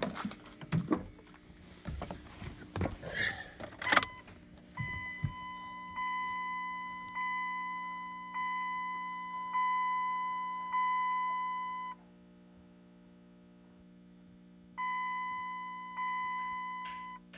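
Rustling and knocks for the first few seconds. Then the Dodge Ram's dashboard warning chime sounds with the key on, a pitched ding about once every 1.2 seconds, six times. It stops for about three seconds and then dings twice more near the end, over a faint steady hum. No engine is cranking or running.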